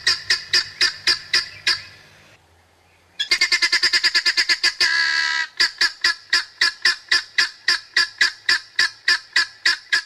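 African wild dogs twittering: a rapid, evenly repeated run of short high-pitched calls, about three a second. It breaks off a little over two seconds in and resumes about a second later, faster at first, with one longer drawn-out call about five seconds in.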